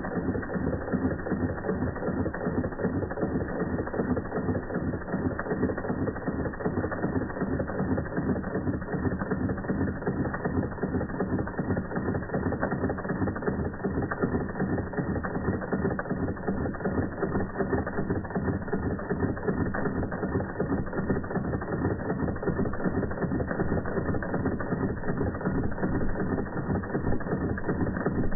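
Doll dual-boiler toy steam engine, model 338/1, running steadily under steam, its small cylinder and flywheel making a fast, even mechanical clicking.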